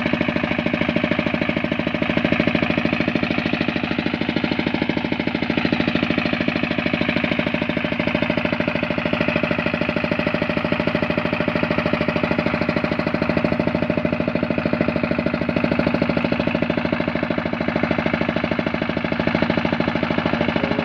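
Engine of a brick-making machine running steadily, with a fast, even pulse and no change in speed.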